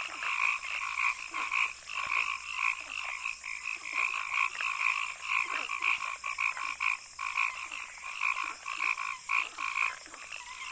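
A chorus of frog-like calls, short calls repeating about three times a second, over a fast, even high-pitched pulsing.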